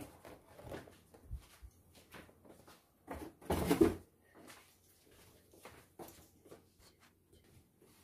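A folding laptop table being handled and adjusted: scattered clicks and knocks from its legs, joints and parts. About three and a half seconds in there is a louder clatter lasting about half a second.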